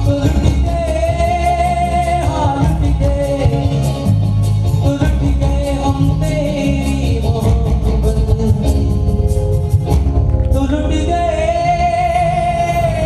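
A man singing a Hindi film song into a microphone over instrumental accompaniment, holding long notes with a wavering vibrato.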